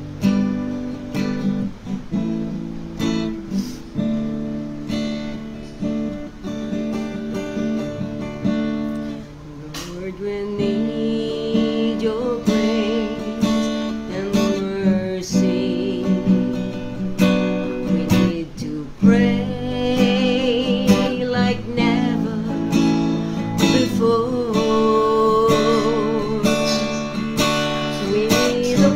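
Acoustic guitar strummed as a woman sings a slow worship song to the Lord. After a strummed guitar opening her voice comes in about a third of the way through, with vibrato on held notes.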